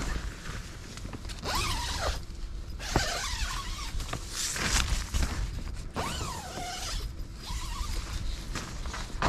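Tent door zipper being drawn open in several long pulls, rasping with a pitch that slides down during each pull, with nylon fabric rustling between them and a low rumble underneath.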